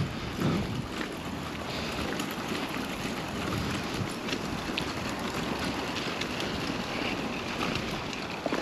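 Wind blowing across the microphone: a steady rushing noise with a few faint clicks.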